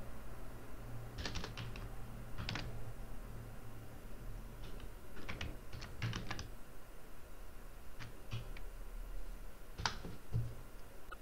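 Computer keyboard keystrokes: scattered single taps and short runs of clicks.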